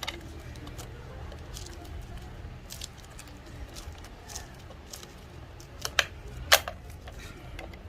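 Scattered small clicks and taps of hands and a small screwdriver working a wall light switch into its box, with two sharper clicks about six seconds in, over a low steady hum.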